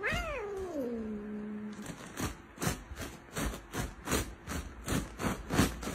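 Orange tabby domestic cat giving one long yowl that slides down in pitch, then a quick run of short, rough, hissing sounds at about three a second, mouth open toward a hand in front of it.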